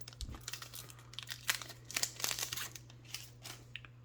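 Trading-card pack wrapper crinkling and tearing as it is opened by hand: a quick run of short crackles, thickest about halfway through.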